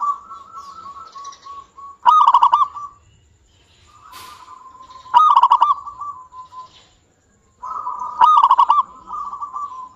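Local zebra dove (perkutut) singing: three loud, rapid stuttering cooing phrases about three seconds apart, with softer strings of cooing notes between them.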